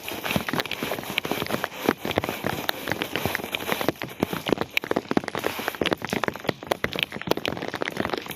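Rain falling on a hard surface: a steady hiss full of dense, irregular drop taps.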